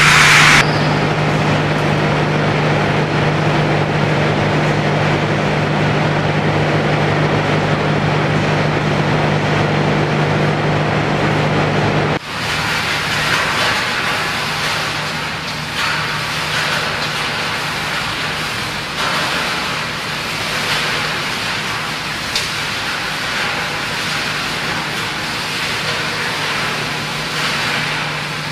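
Scrap metal shredding line machinery running: a steady motor hum with a constant low tone under a rushing noise. About twelve seconds in it changes abruptly to the hissier, brighter run of the hammer mill crusher line, with an occasional sharp knock.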